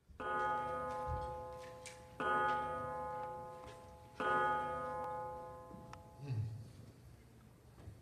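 A clock bell striking three times, about two seconds apart, each stroke ringing on and fading before the next. A short low thump follows about six seconds in.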